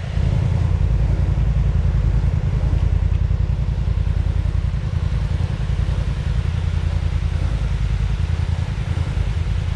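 ATV engine running steadily, a low rumble with no big rise or fall in revs.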